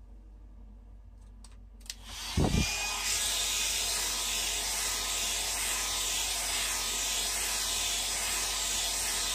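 Conair hand-held hair dryer switched on with a click about two seconds in, a brief low thump of air as it starts, then blowing steadily at full speed.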